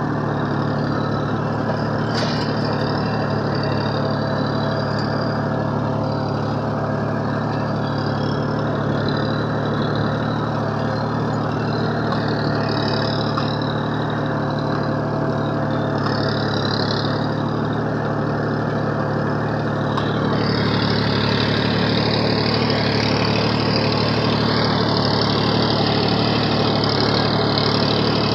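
Massey Ferguson 1035 DI tractor's three-cylinder diesel engine running steadily as it pulls a field implement across tilled soil. It gets a little louder about two-thirds of the way through.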